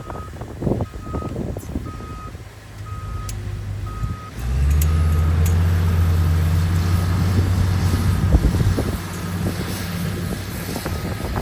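Reversing alarm of a heavy earthmoving machine beeping steadily. Its diesel engine runs underneath, with some clanking early on. About four seconds in, the engine revs up loud and low under load for several seconds, then eases back.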